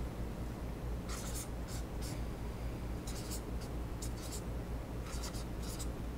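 Pink felt-tip marker writing figures on a whiteboard: a run of short scratchy strokes starting about a second in, over a low steady hum.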